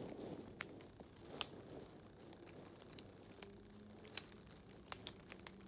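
Infinity cube being folded over and over in the hands: irregular light clicks and clacks as its small cubes knock together, a few of them sharper.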